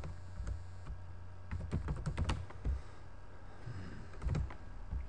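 Typing on a computer keyboard: a few scattered keystrokes, then a quick run of them about two seconds in and a couple more near the end.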